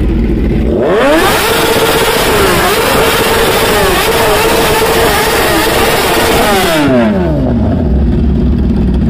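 Kawasaki ZX-10R inline-four superbike engine with an aftermarket slip-on exhaust, revved up hard from idle about a second in. The revs are held high with small flickers for about five seconds, then fall back to idle.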